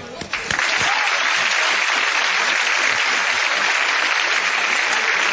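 Studio audience applauding: a few scattered claps, then steady dense applause from about half a second in.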